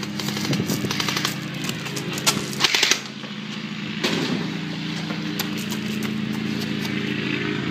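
Gunfire, many sharp shots in quick irregular succession over a steady low hum, continuing without a break.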